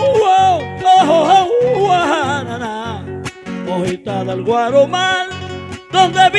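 A man singing a drawn-out, wavering melodic line in the décima style, accompanied by two acoustic guitars strumming a steady, repeating chord rhythm.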